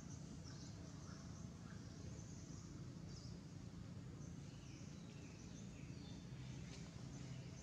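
Faint outdoor ambience: a steady low hum with scattered faint, high, brief chirps here and there.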